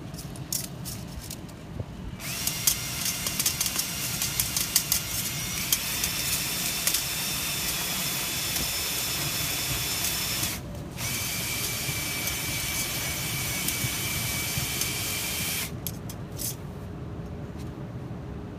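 A power tool's motor whirring with a high whine, its pitch stepping up once, stopping for about half a second, then running again for about five seconds before cutting off; a few clicks come before and after the runs.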